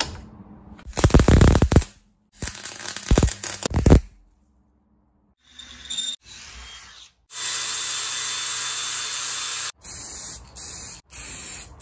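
A run of workshop sounds on a steel steering hub: two bursts of electric welding crackle in the first four seconds, then a cordless drill boring holes through the steel arm, then short hisses from an aerosol spray-paint can near the end.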